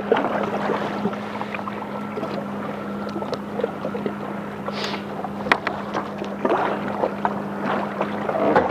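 Jet ski engine running at a steady pitch, with water noise around it.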